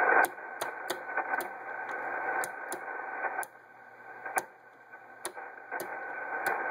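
Static hiss of band noise from a ham transceiver's speaker, with a narrow, muffled top end. It drops away about halfway through and swells back near the end as the MFJ-949B antenna tuner's rotary inductor switch clicks from position to position. The loudest noise marks the inductor setting closest to an antenna match.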